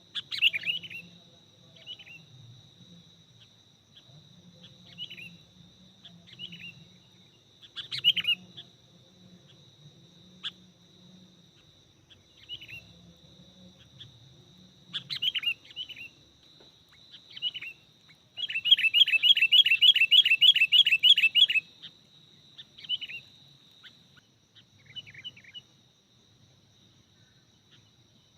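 Sooty-headed bulbul (kutilang) calls: short chirping notes every second or two, with a quick run of about four notes a second for some three seconds in the second half. A steady high tone runs underneath.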